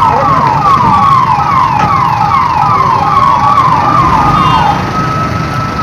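Electronic vehicle siren sounding loudly in rapid falling sweeps, about two and a half a second. Near the end it switches to one long held high tone, over a low vehicle rumble.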